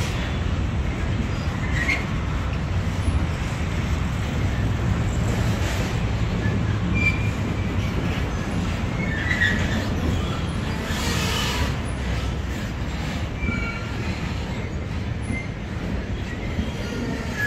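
Freight train of loaded double-deck car-carrier wagons rolling past: a steady low rumble of wheels on rail, with brief high wheel squeals now and then and a short louder screech just past the middle.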